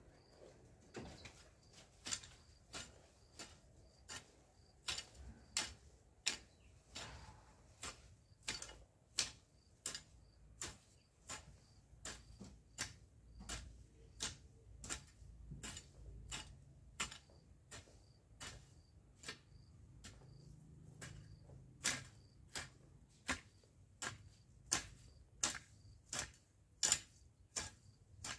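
Long-handled garden hoe working dry, grassy soil in a steady rhythm: a sharp scraping click with each stroke, about one and a half strokes a second.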